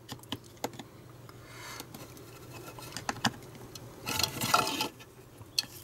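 Screwdriver prying at the plastic clips of a Dyson vacuum battery pack: scattered light clicks, then a louder scraping, crackling burst about four seconds in.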